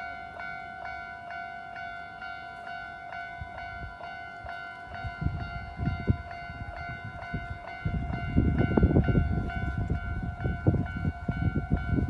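Japanese railway level-crossing warning bell ringing in a fast, regular repeating clang. A low rumbling noise comes in about five seconds in and grows louder from about eight seconds in.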